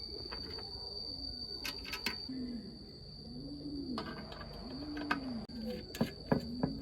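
A dove cooing in low notes that rise and fall, about one a second, over a steady high insect drone, with scattered light clicks and taps.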